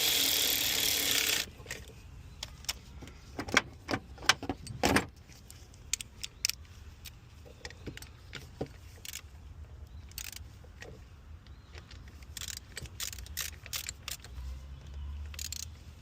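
A cordless electric ratchet runs briefly, snugging the thermostat housing bolts, and stops about a second and a half in. Then come scattered metallic clicks and clinks of hand tools on metal.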